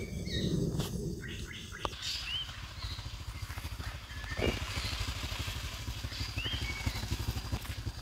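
A small motor running with a low, fast, even pulsing rumble, with a few short bird chirps over it.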